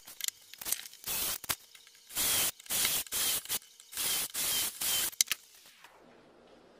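Cordless drill with a 5 mm bit boring a row of holes into a wooden panel through a drilling jig: about seven short bursts of drilling, each under half a second, with sharp clicks between them. Near the end the drill's whine falls as it spins down and stops.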